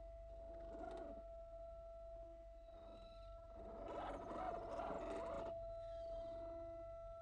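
Axial SCX10 Jeep JK Rubicon RC crawler's electric motor and geared drivetrain: a faint steady whine throughout, with louder bursts of motor and gear whir about a second in and again from about four to five and a half seconds in as it crawls forward.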